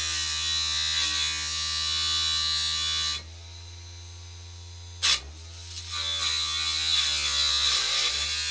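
Homemade table saw's small electric motor spinning a tin-can-lid blade, humming steadily while a piece is pushed into the blade. The piece grinds harshly against the blade for about three seconds. After a sharp click it grinds again from about six seconds in, and the pitch dips briefly near the end as the motor is loaded.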